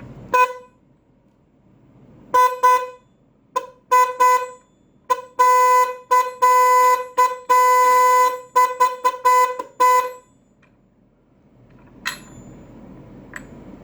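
A 12 V electric car/bike horn being test-sounded at a single steady pitch. It gives a short honk, then a run of quick beeps and several longer blasts over about ten seconds.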